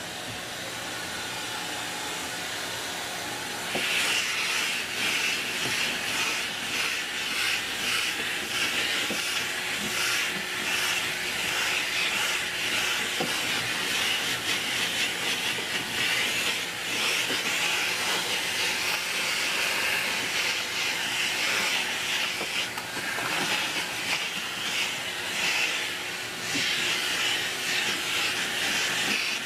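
Vacuum cleaner with a cow-shaped nozzle on a corrugated hose, sucking sanding dust off a wooden workbench. The suction hiss gets louder about four seconds in, as the nozzle meets the boards, and then wavers as it is moved over them.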